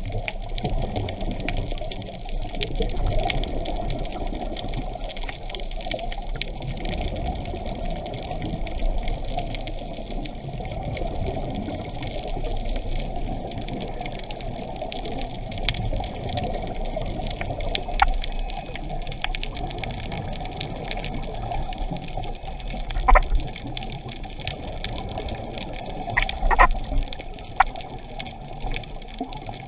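Muffled underwater water noise, heard through an action camera's waterproof housing, with a few sharp clicks in the second half, the loudest about 23 seconds in.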